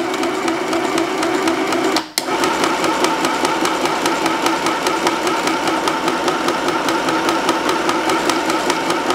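Mini sewing machine running to wind a bobbin, with a steady motor hum and a rapid, even clatter of the needle mechanism, which stays engaged while winding. It stops for a moment about two seconds in, then starts again. This is a test wind after the bobbin winder's height screw was adjusted, to stop the bobbin winding heavy on the bottom.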